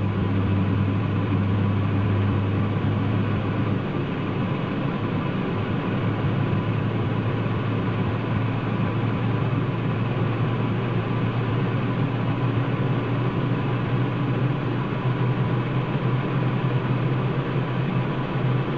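Saab 340's General Electric CT7 turboprop engine running up during its start, heard from the cockpit as a steady low hum. The hum shifts slightly about four seconds in and grows a little stronger and higher in the last few seconds.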